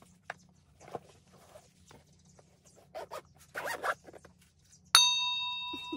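Papers and packaging rustling while being handled, with a short zip-like scratch a little before four seconds. About five seconds in, a bright bell-like chime strikes suddenly and rings on slowly fading; it is the loudest sound.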